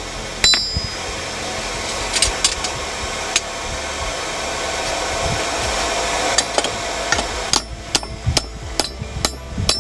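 Hammer striking steel, with one sharp ringing blow about half a second in and a quicker run of sharp strikes in the last two seconds, over a steady rushing noise that drops away near the end.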